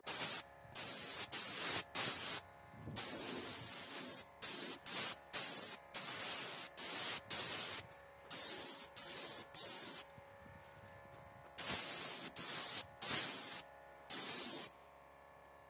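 Aerosol can of white spray paint hissing in a long run of short bursts, each about half a second to a second long with brief gaps between them, pausing once for a second or so a little after two-thirds of the way through.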